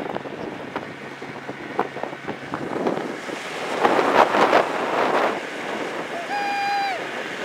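Small wooden boat running at speed under an outboard motor: wind buffeting the microphone and water rushing past the hull, with a louder surge of wind and spray about four seconds in. A short high-pitched voice sounds near the end.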